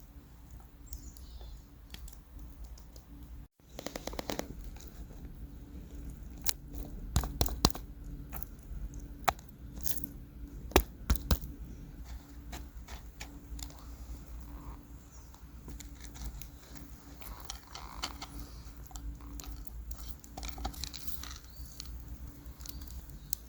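Steak cooking in a cast iron skillet over an open campfire: irregular crackling and sharp pops over a low steady rumble. The pops are thickest in the middle stretch, and the sound drops out briefly a few seconds in.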